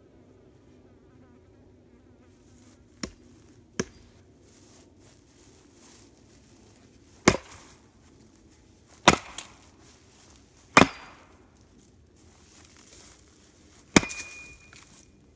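Axe splitting firewood on a chopping stump: a series of sharp strikes into wood, two lighter ones first, then four hard blows a second or two apart, the last followed by a brief ringing tone. An insect buzzes faintly in the background near the start.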